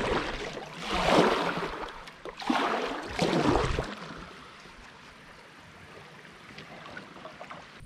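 Kayak paddle strokes splashing through river water, about four swooshing strokes, then it drops to a faint steady water hiss about four seconds in.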